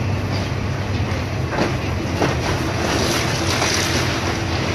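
Komatsu PC270 hydraulic excavator's diesel engine running steadily under load as its attachment tears into a wooden church wall, with several sharp cracks and snaps of splintering timber and falling debris.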